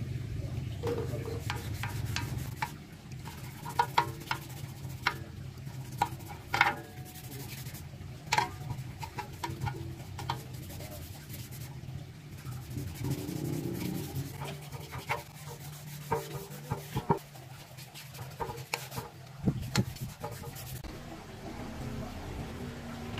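Rubbing and scraping, with scattered sharp clicks and knocks, over a steady low hum.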